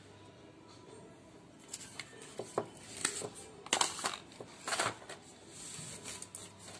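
Hands handling a new smartphone, its charging cable and a clear plastic case on a table. A few light clicks and taps start about two seconds in, then louder plastic rustles and scrapes come around four and five seconds in.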